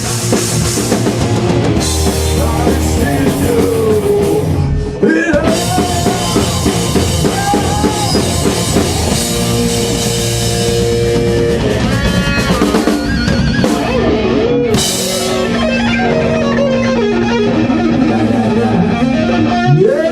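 Heavy metal band playing live: distorted electric guitars with bending notes over a drum kit and bass.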